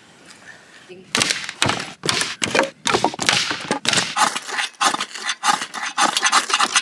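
Dry sticks cracking and snapping as firewood is broken, a rapid run of sharp cracks starting about a second in. Near the end they give way to quick, repeated scraping strokes at the fire pit as the fire is lit.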